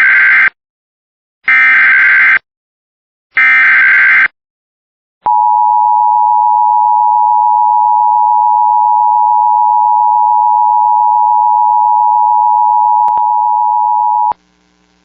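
Emergency Alert System header for the next alert: three identical one-second bursts of warbling data tones (the SAME header), then the EAS attention signal, a loud steady tone held for about nine seconds that cuts off sharply. A faint hum follows in the last second.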